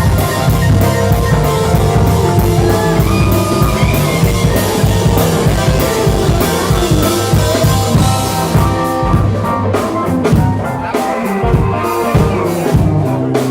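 A rock band playing loudly: a drum kit keeping a steady beat under guitar.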